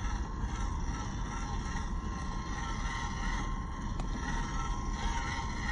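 WPL B36 6x6 RC truck's electric motor and gearbox whining steadily as it crawls over dry grass and mud, with a single sharp click about four seconds in.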